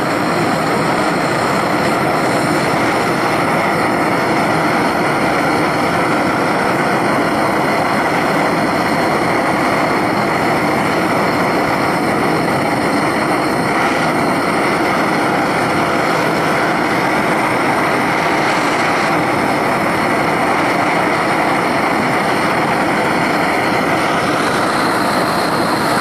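Bernz-O-Matic JT539T swirl-flame propane torch burning steadily, its flame firing into a small melting furnace with an even, unbroken rushing noise.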